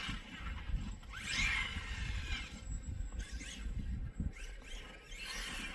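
Traxxas X-Maxx RC monster truck's 1250 kV brushless motor on 8S whining up in pitch in repeated bursts as it accelerates, about three times, over a steady low rumble.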